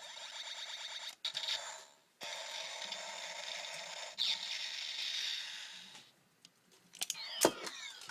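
DX Double Driver toy belt playing its electronic Maximum Drive sound effects with the Heat Memory inserted, with sweeping synthetic tones. It goes quiet about six seconds in, then plastic clicks and another sweeping electronic sound come near the end.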